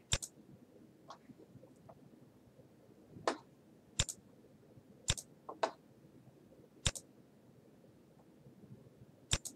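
Computer mouse clicking: five short, sharp single clicks spaced one to three seconds apart, with a couple of softer, duller noises between them.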